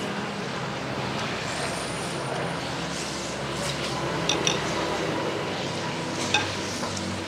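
Steady traffic noise from a busy street, with a few clinks of utensils against bowls: two about halfway through and a sharper one near the end.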